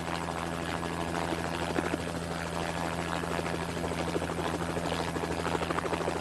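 Steady drone of a helicopter's engine and rotor, an even low hum that holds through, with a busy hiss of noise over it.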